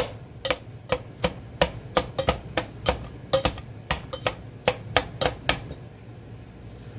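Red plastic chopper tool striking through canned sliced beets onto the bottom of a stainless steel pot: sharp knocks about three a second, each with a short ring from the pot, stopping about five and a half seconds in.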